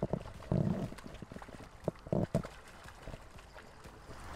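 A hooked rainbow trout splashing at the surface of the water as it fights the line, in two sudden bursts, about half a second in and again a little after two seconds, with light clicks between.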